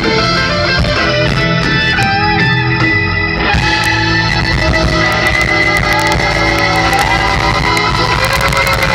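A live band playing loud amplified music with a prominent guitar, with long held notes that slide in pitch, heard from the crowd in front of the stage.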